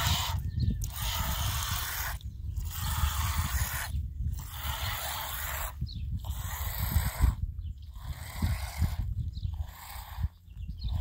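Hand-milking: milk streams hissing into a small plastic bowl in a steady rhythm, about one pull every second and a half to two seconds, over a low rumble.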